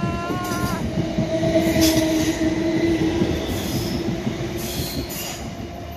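Class 456 and Class 455 electric multiple units passing close by: a dense rumble of wheels on rail with a steady whine through the first few seconds. The sound eases off toward the end as the train draws away.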